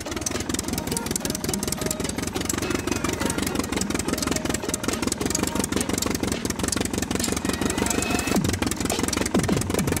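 A plastic toy jeep converted to remote control, its small electric motor and gears whirring as it drives, with the wheels crackling over loose soil and dry grass.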